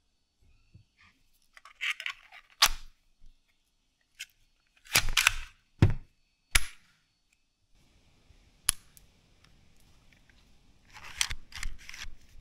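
Plastic clicks and snaps from a 3D-printed Tic Tac shooter toy gun being worked by hand: the magazine clicking into the grip, then the slide pulled back and snapping forward to chamber a mint. A single sharp snap follows a couple of seconds later, then a few softer rattling clicks near the end.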